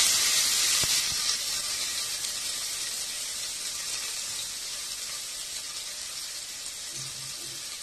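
Finely chopped onion sizzling in hot oil in an aluminium pressure cooker: a sharp hiss as the onion hits the oil that slowly dies down to a steady sizzle.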